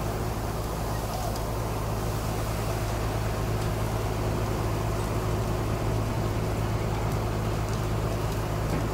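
A motor vehicle's engine idling steadily close by, a constant low hum, with a few faint crackles from the burning debris pile.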